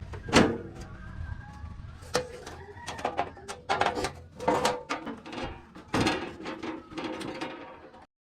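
Irregular knocks and clicks of hard objects being handled, the loudest just under half a second in, with further clusters of clatter through the rest.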